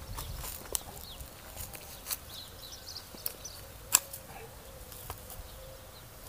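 Hand pruning shears snipping grapevine canes: several sharp snips about a second apart, the loudest about four seconds in. Birds chirp and insects buzz faintly behind.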